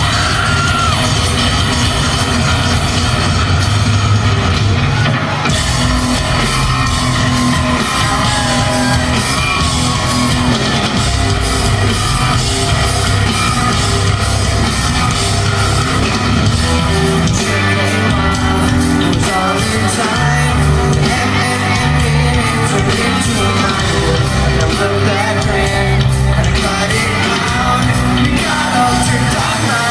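Live rock band playing at full volume with a lead singer, heard in a large hall.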